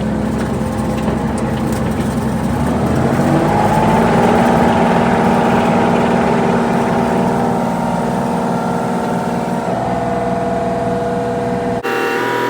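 Excavator engine running, revving up about three seconds in and holding at the higher speed, then easing back down. It cuts off abruptly near the end.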